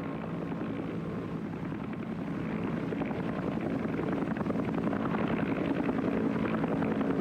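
Helicopter flying, its rotor chopping rapidly over a steady engine hum, growing gradually louder as it comes closer.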